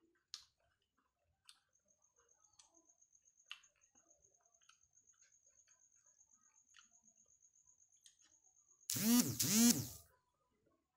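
Faint clicks and scrapes of fingers scooping fried rice in a styrofoam food box, under a high, fast-pulsing trill. About nine seconds in comes a loud two-part call, each part rising then falling in pitch, lasting about a second in all.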